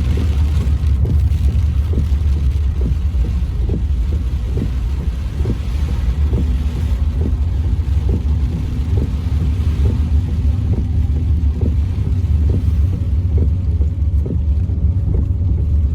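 Floodwater rushing over a road: a loud, steady low rumble with many short irregular knocks through it.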